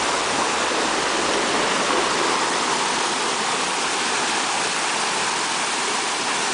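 Fast-flowing mountain stream rushing steadily, an even, loud water noise with no breaks.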